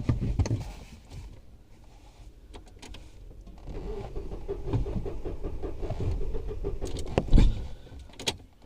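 A car's starter motor cranking the engine in an even rhythm for about three and a half seconds without it starting, then a loud thump. The car will not start even with a jump start, which the helper takes as a sign that the problem is not the battery.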